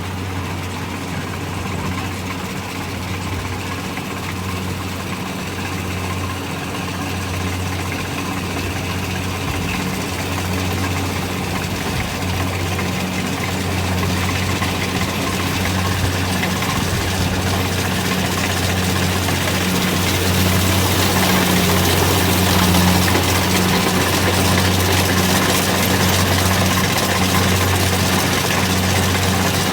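Rice combine harvester's diesel engine running with a steady low hum, growing gradually louder. A hiss builds up over it in the second half.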